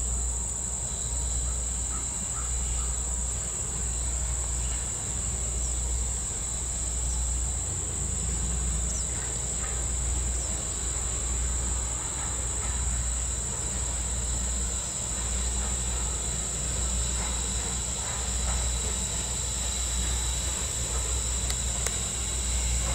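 Insects droning steadily in a high, unbroken pitch, over a low steady rumble from a slowly approaching steam locomotive.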